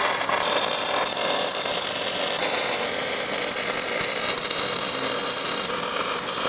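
Electric arc welding a seam in 3/16-inch steel plate with a small Miller welder: the arc gives a steady, unbroken crackle and sizzle.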